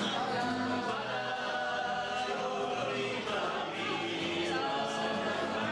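A roomful of people singing a song together, with instruments playing along.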